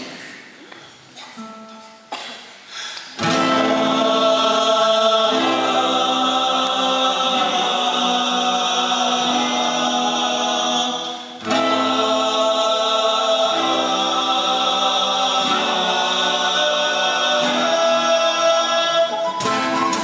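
Male voices singing together in harmony over classical guitars. The full singing comes in about three seconds in, after a few quiet notes, drops out briefly a little past halfway and then resumes.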